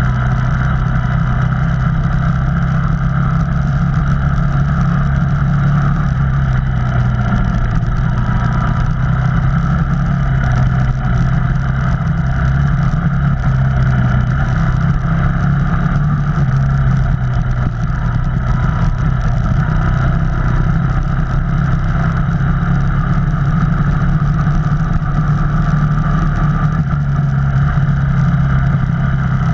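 Off-road vehicle's engine running steadily as it drives a trail, its low drone holding an even pitch and level throughout.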